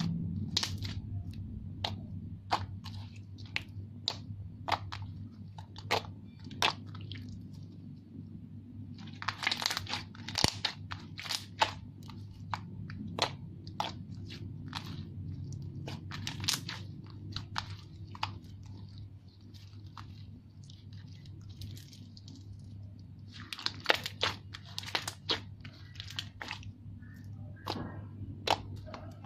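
Clear glue slime mixed with lotion and glitter being squeezed and stretched by hand, giving off irregular sharp pops, clicks and crackles, with denser bursts twice. A faint steady low hum sits underneath.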